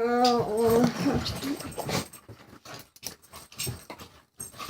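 A dog whining, a pitched cry of about a second at the start, followed by scuffling noises and scattered clicks.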